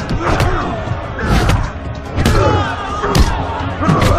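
Film fight soundtrack: about five hard punch and kick impacts, roughly one a second, with grunts and shouts from the fighters over background music.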